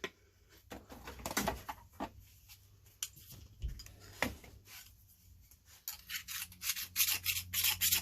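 Scattered clicks and knocks of small metal parts being handled, then in the last couple of seconds a quick run of rasping strokes, about four a second: a hand file scraping through chrome plating to check for copper underneath.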